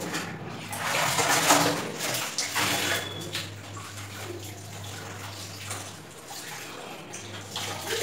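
Water sloshing and splashing in a plastic bucket as cotton clothes are dipped, swished and squeezed by hand in starch water. It comes in irregular bursts, loudest about one to two seconds in.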